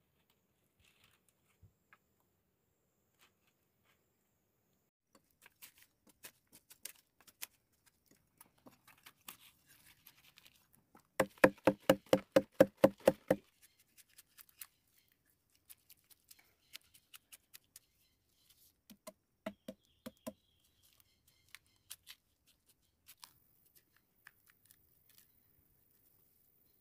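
Scattered clicks and taps of handwork, broken by a quick run of about a dozen sharp knocks, around five a second, near the middle, and four more knocks a few seconds later.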